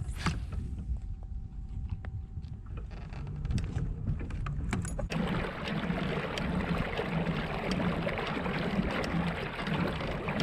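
Kayak moving on the water: water swishing along the hull with a regular beat, louder and fuller from about five seconds in.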